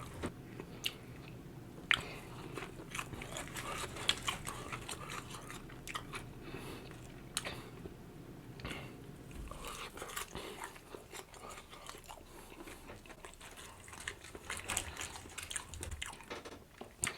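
A person biting into and chewing crispy fried Wingstop chicken, with irregular sharp crunches between softer chewing.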